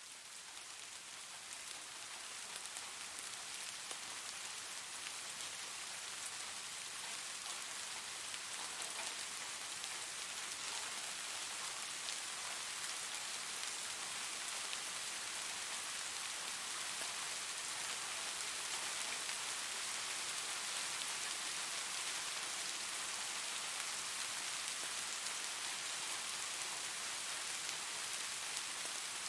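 Steady rain falling on a roof, an even hiss with fine drop ticks. It fades in over the first few seconds, then holds steady.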